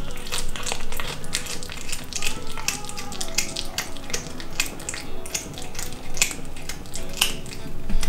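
A cat chewing a piece of raw chicken heart: a rapid, irregular run of wet, crunchy chewing clicks.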